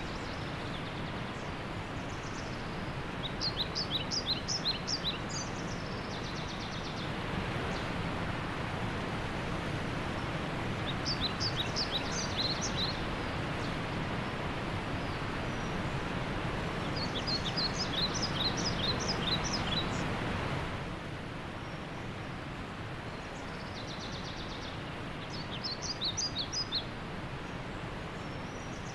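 Steady rush of a waterfall, louder through the middle and dropping suddenly about two-thirds of the way in. Over it, a bird calls four times, each call a quick run of high chirps.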